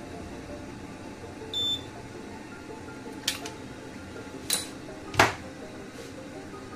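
Prietest Touch semi-automatic analyzer giving one short electronic beep about one and a half seconds in, as it takes in the sample and starts its reading. Three sharp clicks follow over a steady low hum, the last one the loudest.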